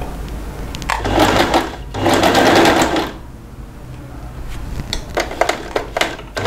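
Electric sewing machine stitching a straight seam through fabric in short runs. There are two longer runs in the first half, a pause, and then a few short bursts near the end.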